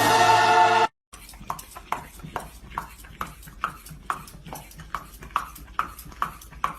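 Loud orchestral music that cuts off about a second in, then a dog panting in an even rhythm, a little over two breaths a second.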